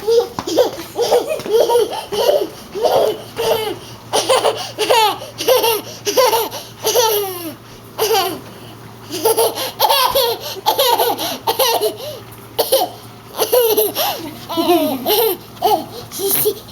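A baby laughing over and over in short bouts, with a brief pause about halfway through.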